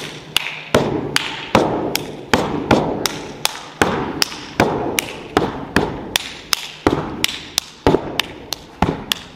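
Solo stepping: boots stomping on a stage floor and hands clapping in a steady rhythm of two to three sharp hits a second, each echoing in a large hall.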